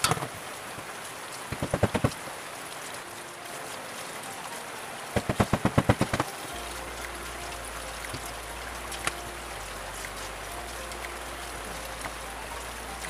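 Raw chicken feet being washed and handled by hand in basins of water: wet handling noises and two runs of quick knocks and clatters, one about two seconds in and a faster one of about eight knocks around five to six seconds. A steady rain-like hiss sits under it.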